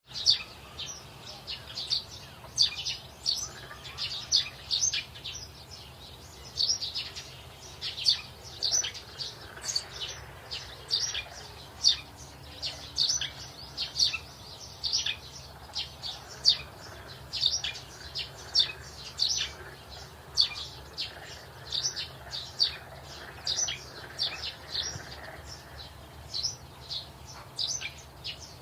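Birds chirping: short, high chirps repeating about once or twice a second, over a faint low steady hum.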